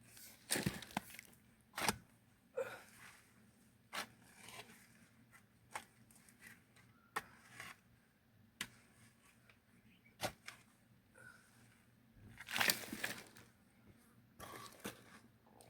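Hand tool working murram soil: irregular sharp knocks about every second or two, with scraping rushes, the longest and loudest near the end.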